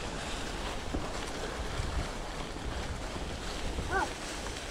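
Mountain bike rolling along a dry, leaf-covered forest trail, with wind buffeting the camera microphone: a steady low rumble under the crackle of tyres on leaves. A brief high-pitched note sounds about four seconds in.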